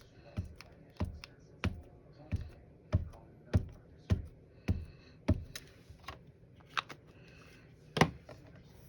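An ink pad is tapped onto a rubber stamp held in a stamping tool, about nine even light taps over five seconds as the stamp is inked. A single louder knock follows about eight seconds in.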